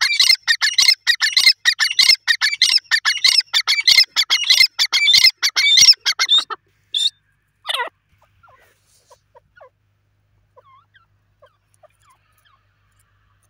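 Grey francolin calling: a fast run of loud, harsh repeated notes for about six and a half seconds, then two separate notes, the second falling in pitch. After that only faint, short notes are heard.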